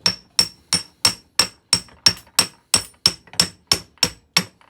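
Brass hammer striking a stuck part of a steel milling-machine vise in a steady run of quick, even blows, about three a second, each with a short metallic ring, knocking the part loose.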